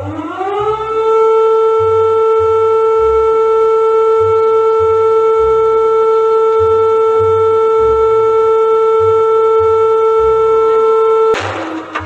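Emergency alert siren rising in pitch over about a second, then holding one steady, loud tone until it cuts off abruptly near the end.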